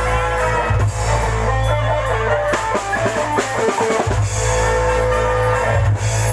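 Loud live band music with drum kit, electric guitar and a heavy steady bass; a quick drum fill breaks in about halfway through, with the bass dropping out for a moment.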